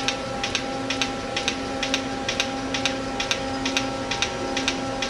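Large aluminium drum spinning at a steady 102 RPM on temporary bearings, driven by an electric motor: a steady mechanical hum with several held tones, and a sharp tick repeating about twice a second.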